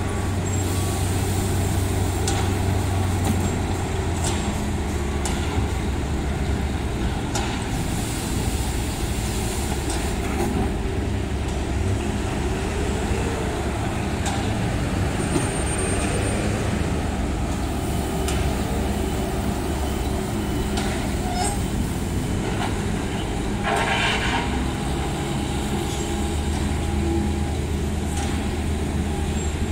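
Heavy road-work machinery running steadily, a Bobcat skid-steer loader working with an asphalt milling machine, its engine drone low and continuous. Scattered knocks of metal and a brief harsher rasp about three-quarters of the way through.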